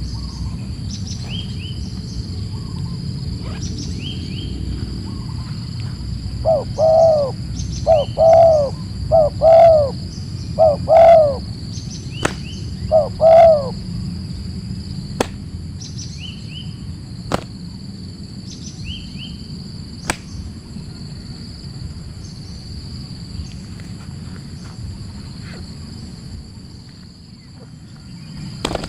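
A santul, a wild dove, coos a phrase of about six deep notes starting about six and a half seconds in, over a steady high insect drone, with short high chirps from another bird repeating throughout.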